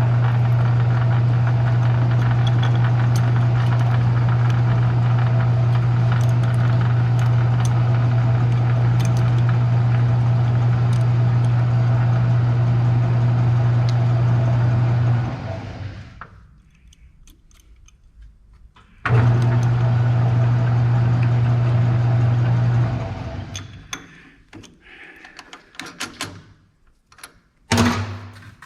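Metal lathe running with a strong steady motor hum. It is switched off about fifteen seconds in and winds down, runs again for a few seconds and stops, followed by light metal clinks and knocks.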